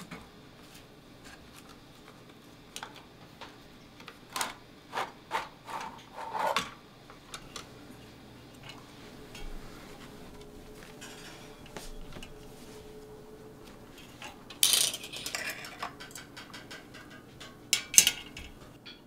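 Parts of a disassembled spring-powered foam-dart blaster being handled: plastic and aluminium pieces clicking and knocking as the U-channel and plunger assembly come out of the body, with a longer scraping, rustling stretch about 15 seconds in and a towel rubbing along the rail near the end.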